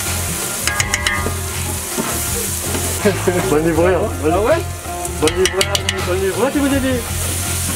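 Sliced onions frying in oil in a large aluminium pot, sizzling steadily as a wooden paddle stirs them, with a few clusters of sharp clicks from the paddle working the pot.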